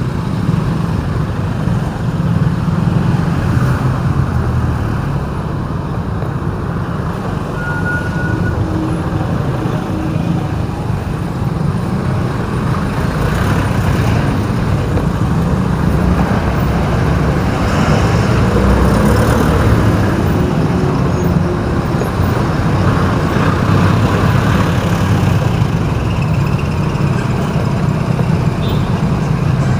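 City road traffic heard while driving: a continuous low rumble of engines and tyres, swelling slightly as vehicles pass.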